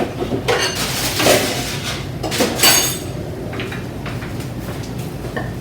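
Cooking utensils and dishes clattering and scraping against pots and pans in a few short bursts, over a steady low hum, as fried chicken is moved into a pan of orange sauce.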